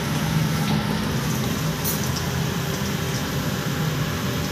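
Steady low hum of a ship's machinery and ventilation, with one faint click about two seconds in.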